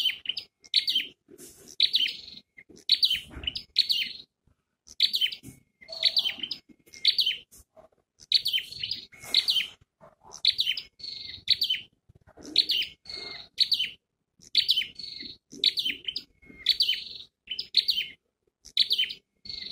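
Caged decoy flowerpecker calling over and over: short, sharp, high chirps, about one or two a second, used to lure wild birds to the trap.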